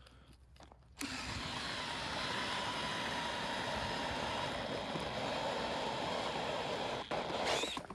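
Power ice auger starting up about a second in and running steadily as it bores a test hole through thick pond ice to check its thickness, stopping near the end.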